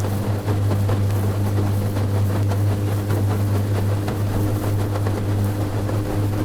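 Small aluminium boat's motor running steadily at cruising speed, a constant low hum with water and wind rush over it.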